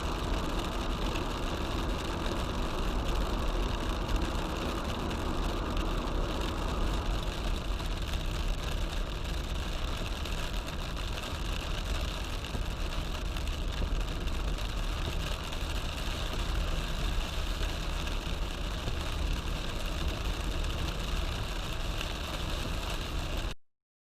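Car driving in heavy rain: a steady wash of rain noise and tyres on the wet road over a low engine rumble. The sound cuts out abruptly near the end.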